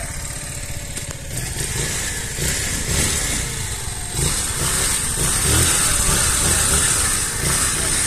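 Small motorcycle engine running close by, at first near idle, then revved harder about four seconds in and held there.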